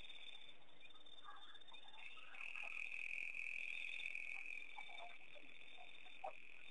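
Night chorus of frogs and insects: a steady high trilling that swells for a few seconds in the middle, with scattered short frog croaks over it.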